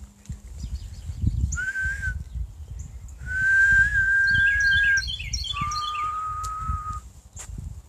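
A person whistling three steady held notes to call birds: a short one, then a long one of nearly two seconds, then a slightly lower one. Small birds chirp rapidly over the second and third notes.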